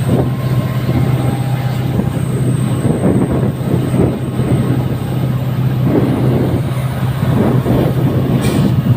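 Passenger train running along the track, with the steady low hum of its WDP-4D EMD diesel locomotive over the continuous rumble and rattle of the coaches on the rails.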